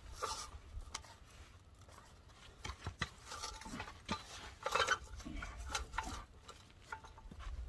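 Scattered metal clinks, knocks and scraping as a skid-steer track and its tensioning strap are handled, busiest in the middle, over a low steady hum.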